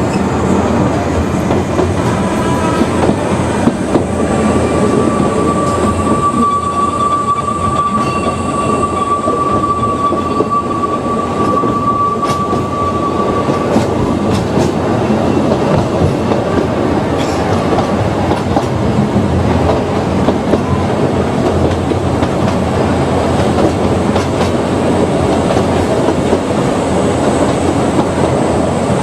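Ōigawa Railway Ikawa Line train running, with a continuous wheel-and-track rumble and the clickety-clack of rail joints. A steady high-pitched wheel squeal starts about a second and a half in and fades out about halfway through.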